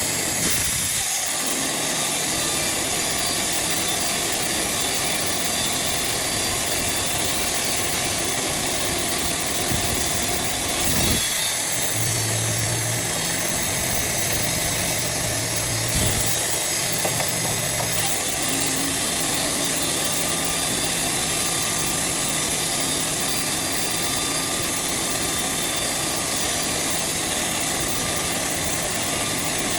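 Wood-Mizer portable band sawmill running steadily while sawing a large poplar log, with a couple of brief knocks partway through.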